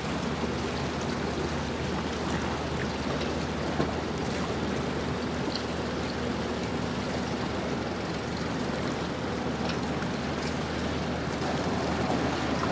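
Boat-ramp ambience: a steady low engine hum, as of boats idling, under an even wash of water and outdoor noise.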